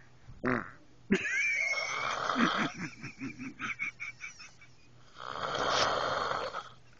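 A woman snoring. Long rough snores start abruptly about a second in and come again near the end, one with a whistling note. A run of short rapid pulses falls between them.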